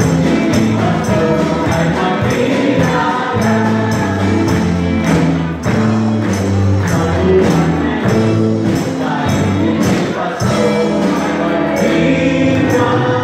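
A group of voices singing together over instrumental music with a steady beat.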